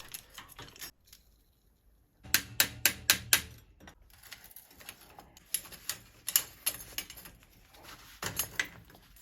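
Metal tools clicking and knocking on bicycle parts as the bottom bracket is taken apart. About two seconds in there is a quick run of about five sharp clicks, followed by scattered lighter clicks and taps and another short cluster near the end.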